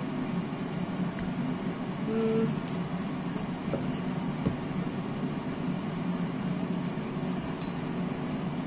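Steady low machine hum, like a running fan or appliance, with a few light knocks of a knife on a wooden chopping board as roast chicken is cut. A brief low tone sounds about two seconds in.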